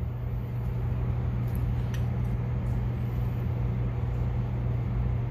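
Steady low machine hum of a workshop background, with a few faint light metal clicks as pushrods are slid down through the engine head into their tappets.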